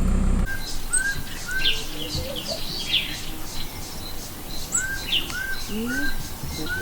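A low vehicle engine hum cuts off about half a second in. After that, several birds call together: one gives short arched whistles in runs of three, over sharper high chirps and a few low rising notes.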